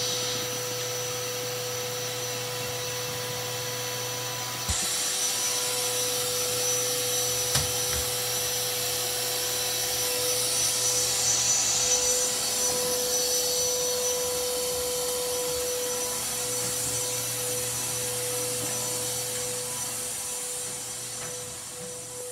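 Wet/dry shop vacuum running steadily, a rushing hiss over a constant motor whine, pulling soot out of a fireplace while the chimney is swept. It grows fainter near the end.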